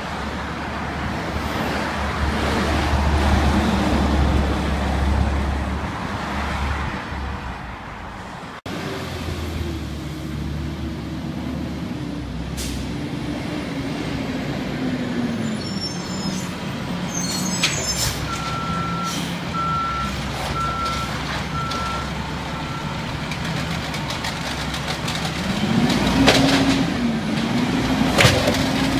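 Garbage truck diesel engines: one truck drives past, then a Peterbilt 320 automated side loader slows and stops with air brakes hissing, and a row of about six short beeps sounds. Near the end its engine revs up and wavers as the hydraulic arm lifts a cart.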